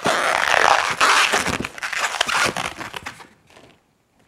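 Inflated latex modelling balloon (a 350) being twisted into a pinch twist: latex rubbing and crackling under the fingers in a dense run of small clicks. It fades out about three seconds in.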